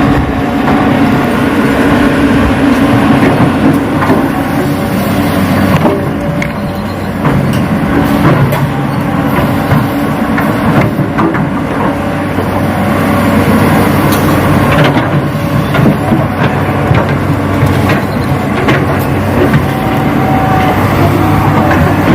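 RC Hitachi excavator running steadily, with a continuous engine-like hum and scattered short clicks and knocks as it works.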